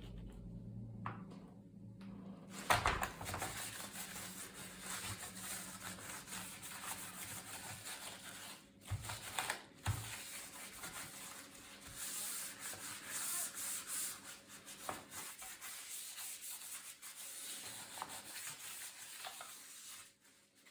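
Continuous rubbing and scrubbing on a laptop's parts during cleaning, going on steadily with two short breaks near the middle. A low hum at the start stops after about two and a half seconds.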